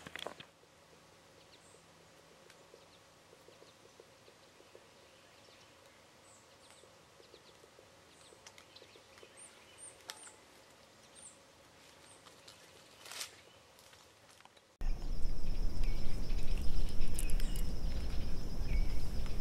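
Quiet outdoor ambience with faint, scattered high bird chirps and a couple of soft clicks. About fifteen seconds in it jumps to a much louder stretch: a steady high insect trill over a low rumble.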